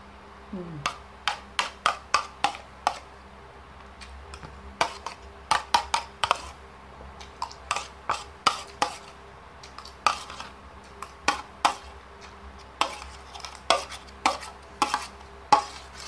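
A spoon clinking and scraping against a dish in quick runs of sharp taps as food is scooped up.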